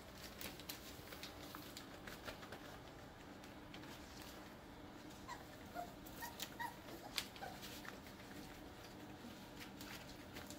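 Five-week-old Airedale Terrier puppies whimpering and letting out short, high squeaks as they play-wrestle, most of the squeaks bunched together about halfway through, over faint scuffling and small clicks.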